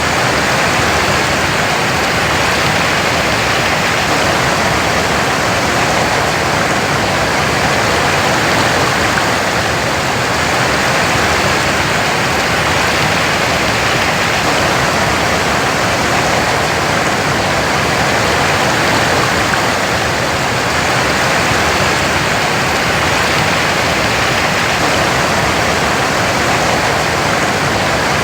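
Waterfall pouring steadily, a continuous even rush of water.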